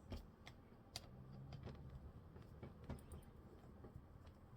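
Faint, irregular clicks and light taps of a small screwdriver and screws against a laptop's plastic case as the battery screws are undone.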